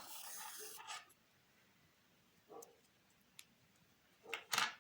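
Yarn rustling softly as it is pulled tight through crochet stitches to fasten off. A few faint clicks follow, and there is a short rustle near the end.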